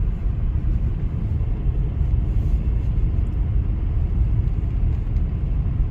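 Steady low rumble of a Chevrolet Volt driving at speed, running on its gasoline engine: road and tyre noise with engine hum, even throughout.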